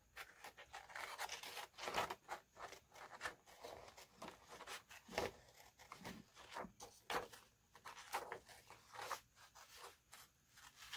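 Faint, irregular rustling and crinkling of decorative paper as sheets are handled and cut.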